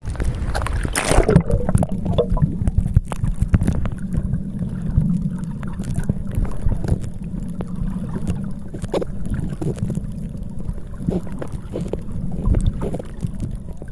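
Wind buffeting the microphone in a steady low rumble with frequent clicks, over the wash of the sea.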